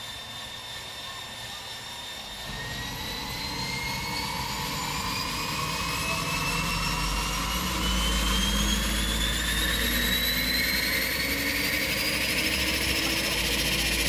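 Jump plane's turboprop engine spooling up: a whine that rises steadily in pitch over several seconds while the engine grows louder and a low rumble builds underneath.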